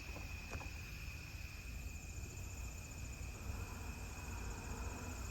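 Late-summer evening insect chorus of crickets: a steady high trill, with a second, faster-pulsing higher insect sound joining about two seconds in, over a low rumble.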